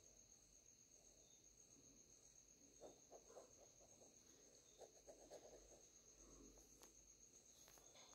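Faint scratching of a ballpoint pen drawing on lined paper, in two short bursts of strokes about three and five seconds in. A steady, high-pitched pulsing chirp runs underneath.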